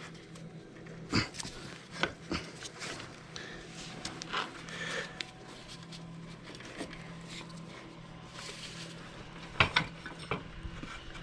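Scattered knocks, clicks and rubbing of metal parts and tools being handled on a motorcycle's rear wheel assembly, with two louder knocks about a second in and near the end, over a faint steady low hum.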